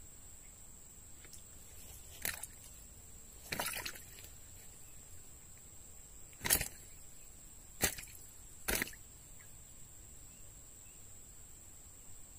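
Five short, sharp knocks spread over about six seconds, the loudest about six and a half seconds in, the second a brief rattling cluster.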